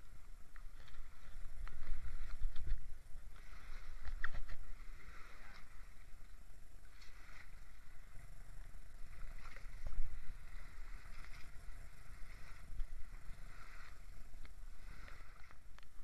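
Choppy lake water splashing and sloshing in the shallows in irregular swells, over a low rumble of storm wind against the microphone.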